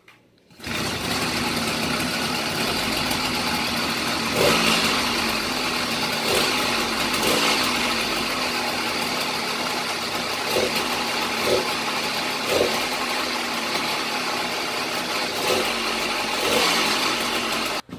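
Small two-stroke motorized-bicycle engine kit (66cc/80cc class) running steadily, starting about half a second in, with a few brief louder moments.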